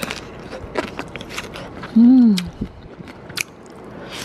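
Crisp clicks and crunches of someone eating rice with raw, crunchy Thai eggplant (cà pháo) in shrimp paste. About two seconds in comes a short hummed 'mmm' of enjoyment that rises and falls in pitch, the loudest sound.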